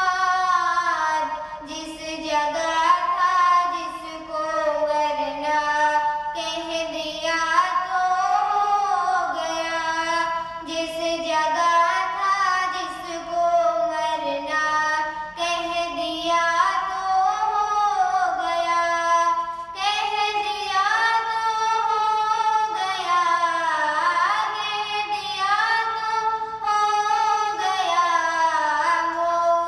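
A young girl singing an Urdu naat, a devotional song in praise of the Prophet, into a handheld microphone. A single solo voice sings long phrases that glide up and down, with short breaths between them.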